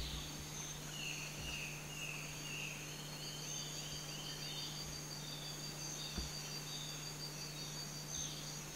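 Amazon rainforest wildlife: a bird gives a series of short falling notes that come faster about three seconds in, over steady pulsing high insect trills. A faint low hum runs underneath.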